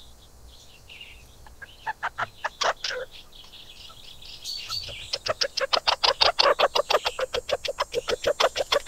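A small forest animal's rapid chattering call: a few separate harsh notes about two seconds in, then from about five seconds in a fast, even run of sharp notes, about nine a second.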